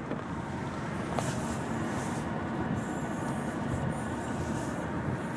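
Steady low rumble of a vehicle in motion, with a couple of brief hissing swishes, one about a second in and one near the end.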